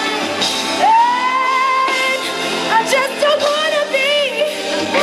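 A woman singing live into a microphone. About a second in she slides up into a long held high note, then sings a run of quick, ornamented notes.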